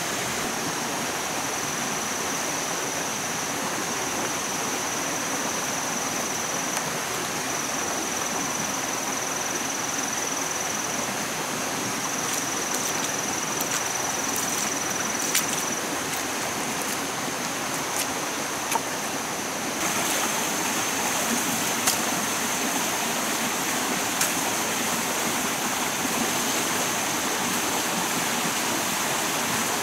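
Rainforest stream rushing over rocks, a steady even hiss of running water. A thin high steady tone sits above it, and a few light clicks come through in the second half.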